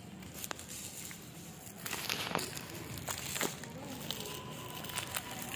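Handling noise from a phone held close: fingers and hand rubbing over it near the microphone, a crinkly rustling with a few sharp clicks.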